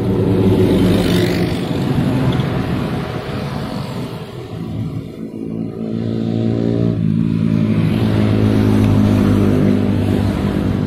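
A red angkot minibus drives past close by, its engine loud for the first few seconds and then fading. A second vehicle approaches and passes in the second half, loudest about nine seconds in.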